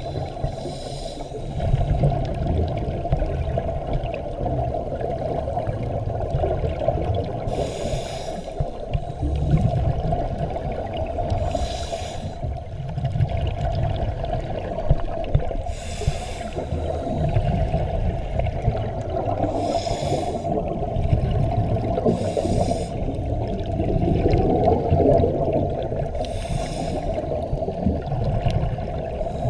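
Scuba diver breathing through a regulator underwater: exhaled bubbles burst out every few seconds over a steady low underwater rumble.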